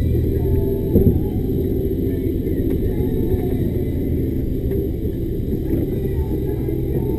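Diesel engine of a loaded timber lorry running steadily, heard from inside the cab, with a single short knock about a second in.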